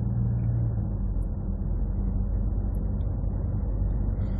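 Steady road and engine rumble inside the cabin of a moving car on a highway; a low hum drops away about a second in.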